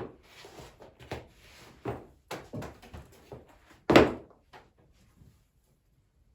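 A run of short scrapes and light knocks from objects being handled, with one loud thud about four seconds in.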